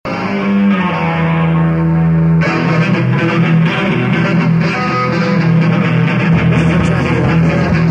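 Rock band playing the opening of a song: an electric guitar holds ringing notes, then the full band with bass and drums comes in suddenly about two and a half seconds in.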